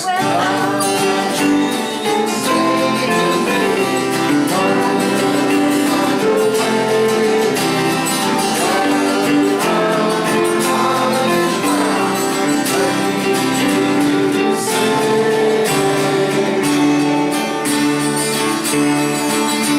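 Guitar-led band music with singing, starting suddenly and playing on steadily.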